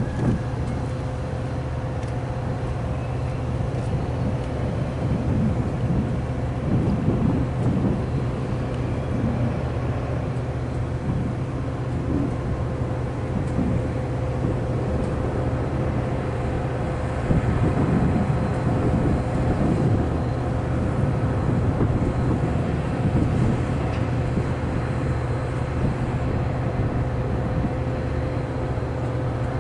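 Steady low drone of an engine running out of sight, with irregular low gusts of wind on the microphone.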